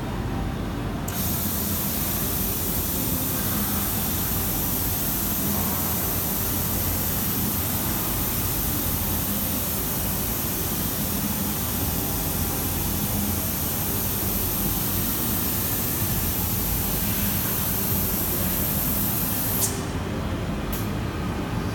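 Compressed air hissing steadily from a pneumatic tube-gripping manipulator as its gripper is worked, starting abruptly about a second in and cutting off suddenly near the end, over a steady low rumble.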